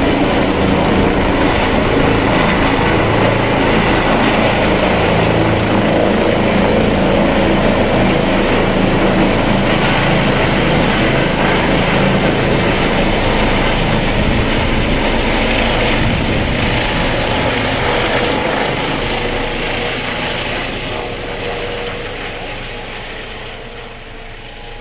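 Eurocopter EC135 T2i twin-turbine rescue helicopter lifting off and climbing away: steady rotor and turbine noise with a high whine. It fades over the last several seconds as the helicopter flies off.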